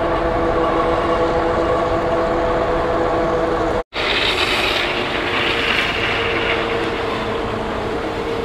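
Super73 RX electric bike riding on pavement: a steady whine of several tones over wind and road noise. It cuts out for an instant a little under halfway through, after which the wind noise is hissier and the whine fainter.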